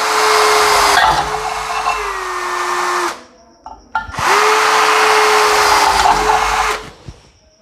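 Bosch GSB 180-LI 18 V cordless drill drilling through an aluminium section: two runs of about three seconds each with a short pause between, the steady motor whine sagging slightly in pitch near the end of each run as the bit cuts.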